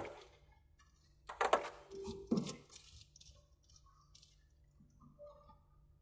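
Clinks and clatter of hard objects being handled: a cluster of knocks about a second and a half in and another a second later, then a few faint ticks.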